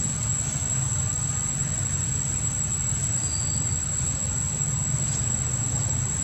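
A steady low rumble with a constant thin high-pitched whine above it, and a faint short chirp or two.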